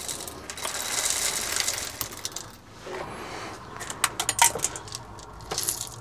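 Whole coffee beans poured from a bag into an electric coffee grinder's hopper: a dense rattling patter for about two seconds, then scattered sharp clicks and taps as the last beans drop and settle.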